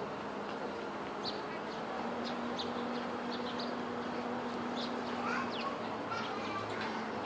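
Eastern spot-billed ducklings peeping: many short, high peeps scattered through, over steady background noise.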